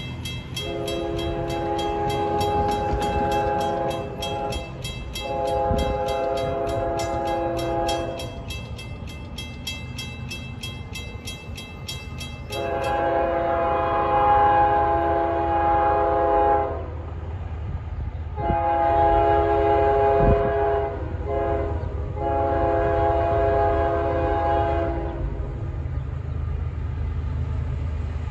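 Approaching train's multi-chime air horn sounding a series of long blasts with short gaps, the warning pattern for grade crossings, over a low rumble. A fast, steady ringing, like a grade-crossing bell, runs beneath the first blasts and stops about 13 seconds in.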